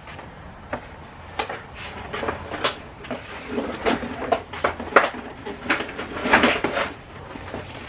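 Packaging rustling, with a series of light knocks and clicks as welder accessories are handled and lifted out of the box.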